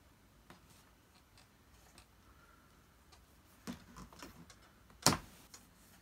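Vintage Dr Nilco upright vacuum cleaner's parts being handled and pushed together: scattered light clicks, a few knocks after a few seconds, then one sharp, loud clunk about five seconds in, as a part that won't fit properly is worked into place.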